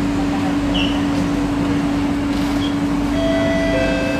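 Singapore MRT electric train running, heard from inside the carriage: a steady low hum over an even rushing noise, with faint high steady tones joining about three seconds in.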